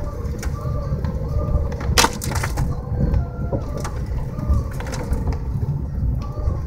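Car driving slowly over an icy, snow-covered road, heard from inside the cabin: a steady low rumble broken by scattered cracks and crunches from ice and debris under the tyres, the loudest about two seconds in.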